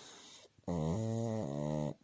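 Pug snoring: a soft, airy breath, then a loud, low, droning snore lasting just over a second.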